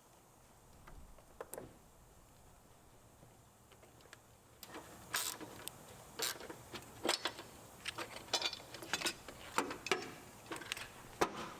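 Irregular clicks and light metallic knocks from hand tools and parts being handled. A few scattered clicks, then from about halfway a quicker, uneven run of several a second.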